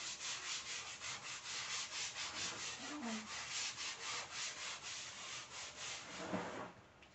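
Stiff hand brush scrubbing a wet tiled kitchen floor in quick back-and-forth strokes, about four a second, until it stops shortly before the end.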